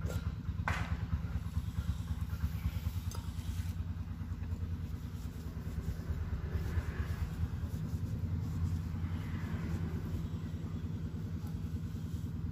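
A small engine running steadily, a low, rapid, even pulsing, with a single sharp click under a second in.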